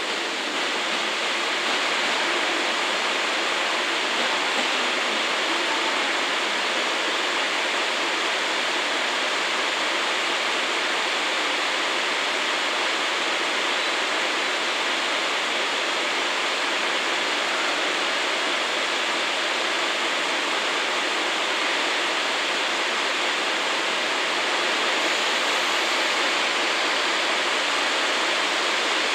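A steady, even hiss that does not change, with no distinct events in it.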